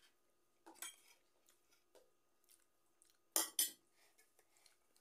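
Metal spoon clinking against a ceramic plate: two sharp clinks close together about three and a half seconds in, after a softer clatter about a second in, with faint small clicks of eating between.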